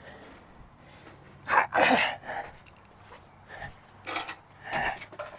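Steel engine bolts and parts being handled and set down, with clinks and rustles; the loudest clatter comes about one and a half to two seconds in, with two smaller ones near the end.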